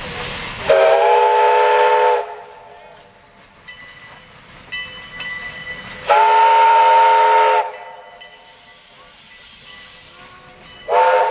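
Steam locomotive CPR 2024 sounding its chime whistle as it passes: two blasts of about a second and a half, then a short third one at the end, each a chord of several notes at once. Between the blasts the locomotive and its wooden coaches roll by more quietly.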